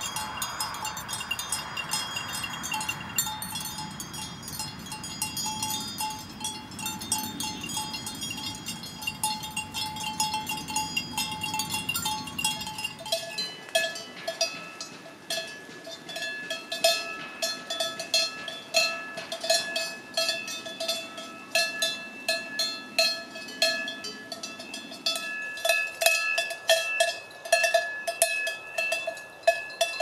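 Neck bells on grazing goats and sheep jingling and tinkling. About halfway through, a large cowbell on a grazing cow takes over, clanking repeatedly and irregularly as the cow moves its head.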